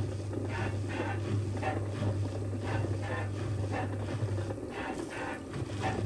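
Dyson contrarotating washing machine with its drums stuck in contrarotate mode, turning against each other where they should tumble normally: a steady low motor hum under rhythmic whooshes of water sloshing, about two or three a second.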